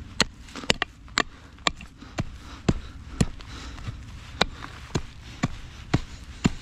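A steady series of sharp knocks, about two a second, with a slightly longer gap near the middle.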